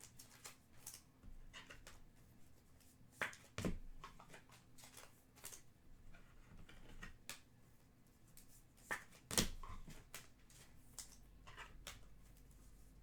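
Trading cards and their packaging being handled on a table: scattered soft clicks, taps and rustles, with a few louder knocks a little over three seconds in and again about nine seconds in.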